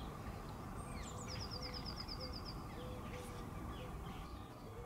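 Birds chirping, with a rapid high trill of about nine notes a little over a second in, over a steady low background rumble.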